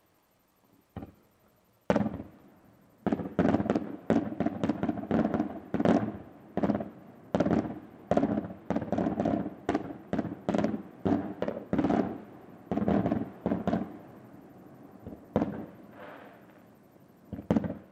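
Fireworks shells bursting in the air. A single sharp bang comes about two seconds in, then a rapid run of bangs, several a second, for about ten seconds, thinning to a few separate reports near the end.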